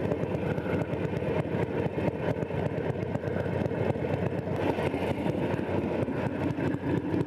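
Motorcycle engine running at low revs, a steady, rapid, even pulsing from the exhaust.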